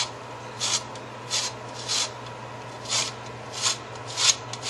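Lemon peel being zested on a hand-held grater: about seven short scraping strokes, spaced roughly half a second to a second apart.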